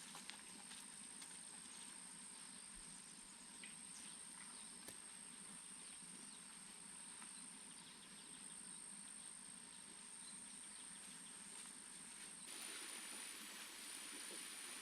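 Faint outdoor ambience: a soft, even hiss with a steady high-pitched whine running through it and a few light ticks. The hiss grows slightly louder about twelve seconds in.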